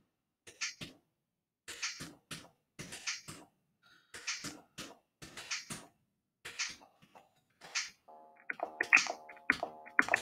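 Drum samples on the Sampulator online sampler, played live from the computer keyboard: short, sharp percussion hits, irregular and about two a second. Near the end a sustained pitched keys sample joins them and the hits come quicker.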